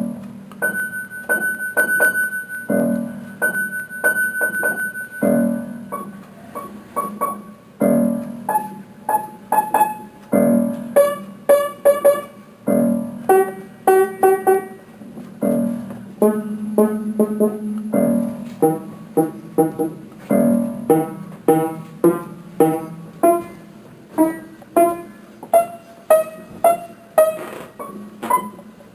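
Piano music with a regular low bass note every couple of seconds and a melody of quick repeated notes above it.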